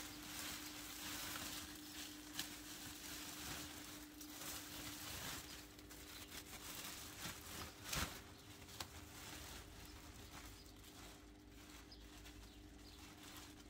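Dry garden clippings rustling and crackling as they are pushed by hand into a black plastic rubbish bag, with the plastic crinkling. There is a sharp snap about eight seconds in.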